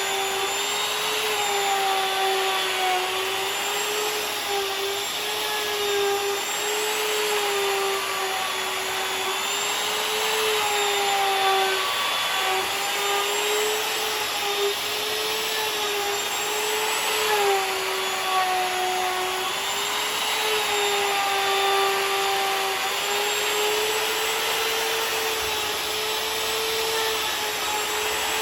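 Wood router milling a walnut tabletop flat, running steadily with a whine that wavers slightly in pitch as it cuts.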